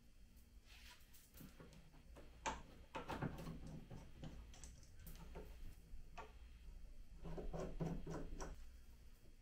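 Wooden tufting frame being handled and flipped around: scattered knocks and clicks of wood and fittings, loudest about two and a half seconds in, with a quick run of clicks near the end, over a low steady hum.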